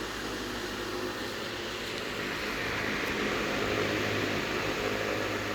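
Restored circa-1915 Eck Hurricane side-gear oscillating fan running: a steady motor hum under an even rush of air from its Ming blade, growing a little louder about halfway through. It runs on newly cut gears and new bronze bearings.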